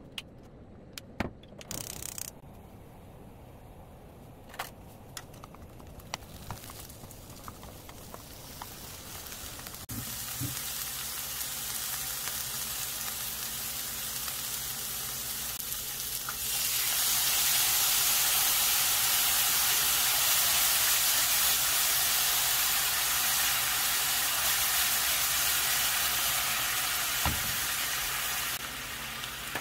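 Sliced onions sizzling in a hot frying pan after a few light clicks, the sizzle building gradually. About halfway through it jumps to a much louder, steady sizzle as a dark soy-based sauce bubbles in the pan, then eases somewhat near the end.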